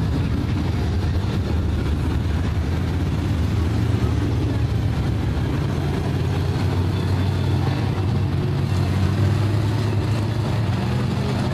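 Several dirt late model race cars' V8 engines running steadily together around the dirt oval, with no sharp revving or bangs.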